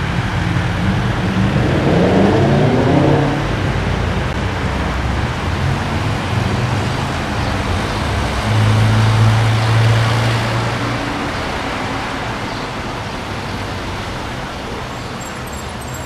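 Road traffic on a street: vehicles passing close by, one engine rising in pitch as it speeds up about two seconds in, then a steady low engine hum near the middle, fading slowly towards the end.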